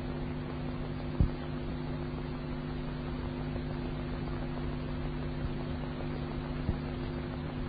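Steady electrical hum with hiss and static from an old recording's background noise, with a sharp click about a second in and a fainter one near the end.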